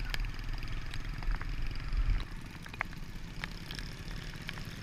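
Motorbikes riding along a wet road, heard through the camera's microphone: a low engine and wind rumble with scattered sharp clicks. The rumble eases a little past two seconds in.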